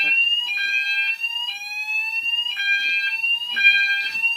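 Fire alarm sounders going off together: a Roshni sounder on the BS sweep tone, a rising whoop that repeats about once a second, over a second sounder's steady tone switching on and off.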